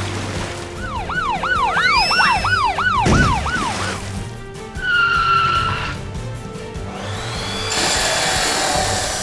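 Cartoon sound effects over background music: for about three seconds a quick run of wobbling up-and-down whoops, about three a second, with a higher whistle glide over them and a low thump, then a short steady horn-like tone and a rising whoosh near the end.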